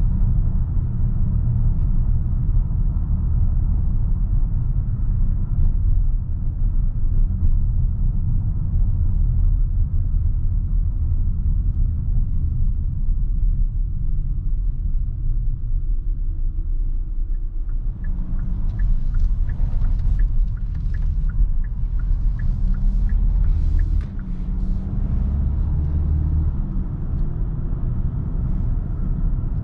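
Kia Sorento's 2.2 CRDi diesel engine and the road, a steady low rumble while driving. Past the middle comes about six seconds of quick, even ticking.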